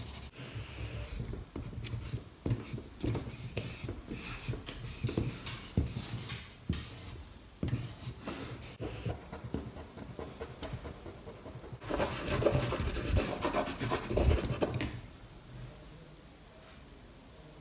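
Charcoal scratching and rubbing across drawing paper in quick, irregular strokes, with a louder, denser run of strokes near the end before it stops.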